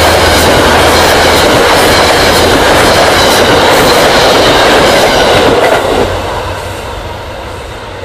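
Metro-North passenger train's coaches passing close by, a loud rumble with a run of wheel clicks over the rail joints. About six seconds in, the sound drops away as the last car passes and the train pulls off.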